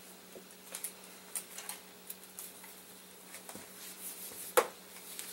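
Light handling noise of an appliance power cord being unwound and moved about, with scattered soft clicks and rustles and one sharper knock about four and a half seconds in, over a faint steady hum.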